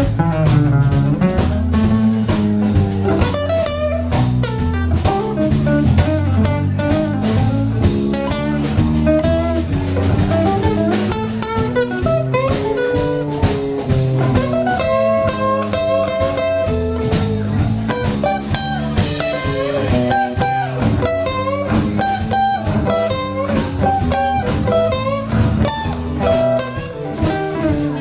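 Live band playing: acoustic guitar over bass and a drum kit.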